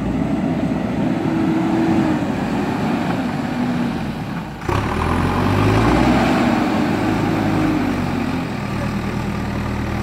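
JCB backhoe loader's diesel engine running under load and revving as the front bucket digs into the earth, its pitch rising and falling. The sound changes abruptly a little before halfway through.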